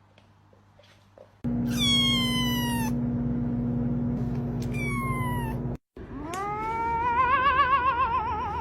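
Cat meowing: a long falling meow, then a shorter falling one, over a steady low hum. After a brief cut, a long drawn-out yowl rises and then wavers up and down in pitch.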